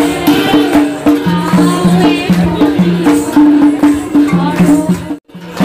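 Live traditional folk music: large brass hand cymbals clashing in a steady rhythm over a low repeating two-note pattern and a wavering melody. The sound drops out abruptly for a moment about five seconds in.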